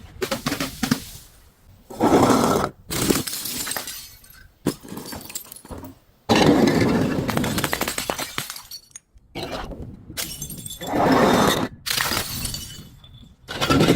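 Glass bottles breaking and being crushed: several loud bursts of shattering, each starting suddenly and trailing off into crunching and tinkling of broken glass.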